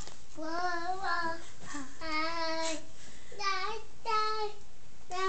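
A toddler singing to himself without words: about six short pitched notes, some held and some wavering.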